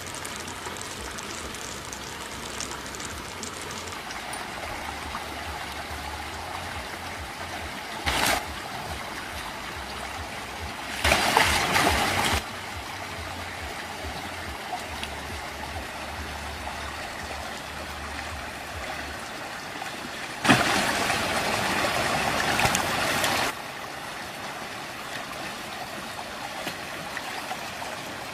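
Steady rush of flowing water, with louder bursts of noise on top: a short one about eight seconds in, a longer one around eleven seconds, and the longest, about three seconds, starting around twenty seconds in.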